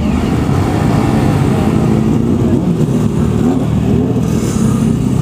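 Motorcycle engine running at low road speed, its pitch rising and falling a little with the throttle.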